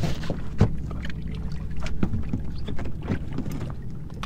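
Choppy water slapping against the hull of a small fiberglass boat, with wind rumbling on the microphone and scattered irregular knocks and clicks.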